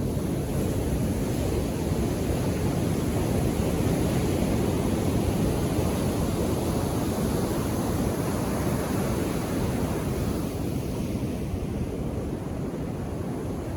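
Ocean surf: waves breaking and washing up the shore in a steady rush. The rush swells in the middle and eases off near the end.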